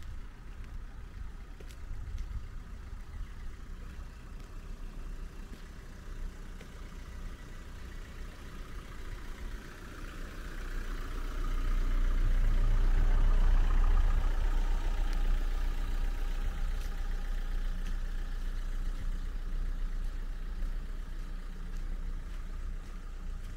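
A car passes close by on the road, its engine and tyre noise building to a peak about halfway through and then fading slowly, over a steady low outdoor rumble.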